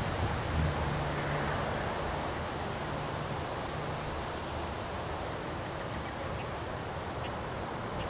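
Strong wind blowing steadily through trees, a continuous rushing hiss of stirred foliage during a windstorm.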